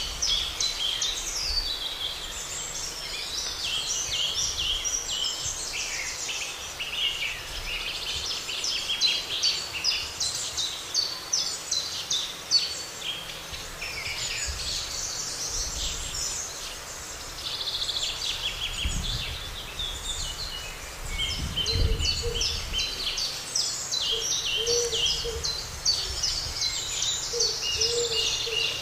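A chorus of several songbirds singing and chirping continuously, many short overlapping phrases. A couple of low rumbles come about two-thirds of the way in, and some faint low calls sound near the end.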